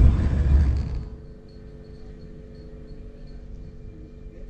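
Road and engine noise inside a moving van's cabin, which drops away about a second in, leaving a faint steady hum.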